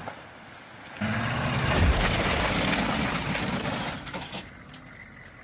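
Heavy forestry machine working: a loud, dense mechanical noise over an engine, starting about a second in and easing off after about four seconds.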